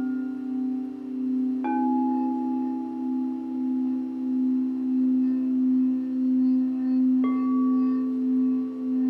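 Singing bowls: a low ringing tone holds throughout with a slow wavering pulse. Bowls are struck twice, about two seconds in and again near the end, and each strike rings out and slowly fades.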